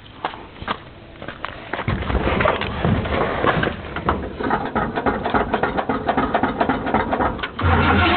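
A few clicks, then, about two seconds in, a GMC pickup truck's engine cranking over on the starter without catching, on a cold start after a carburetor rebuild. Near the end the sound turns louder and steadier as the engine begins to fire.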